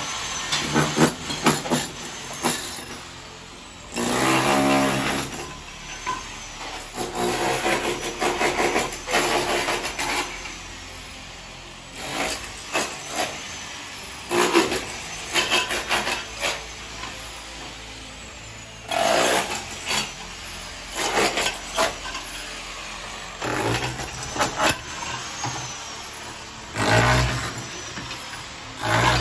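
Demolition of brick kitchen cabinets: repeated knocks and scraping of tools against brick and rubble, in bursts of a few seconds with short pauses between.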